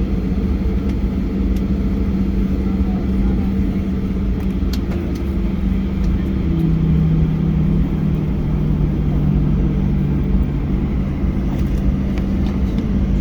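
Cabin noise of a Boeing 737-800 taxiing, its CFM56 engines at idle: a steady drone with a low hum, and a second, slightly lower hum joining about halfway through.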